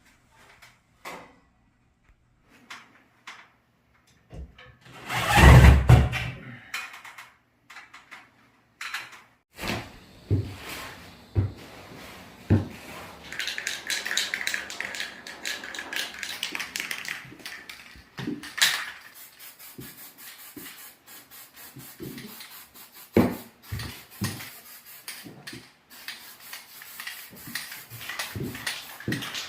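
Intermittent knocks, clunks and scraping from hands working with stove parts, with one loud heavy clunk about five seconds in and a longer stretch of scraping or rubbing around the middle.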